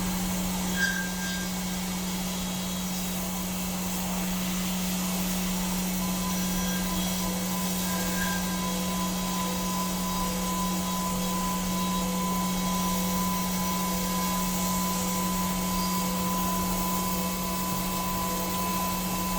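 CNC milling or turning machine running steadily, a constant hum with hiss under it and a faint steady high whine that comes in about halfway.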